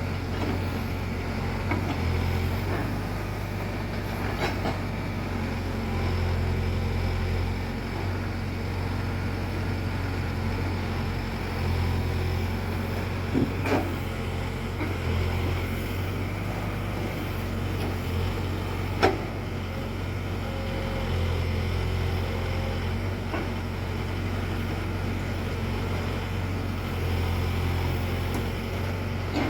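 A Case 851EX backhoe loader's diesel engine running steadily, its hum easing up and down a little, with a handful of sharp metallic knocks: a close pair about halfway through and the loudest a few seconds later.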